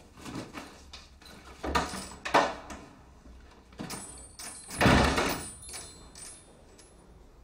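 A door being opened and shut, with a few scattered knocks and a louder thump about five seconds in.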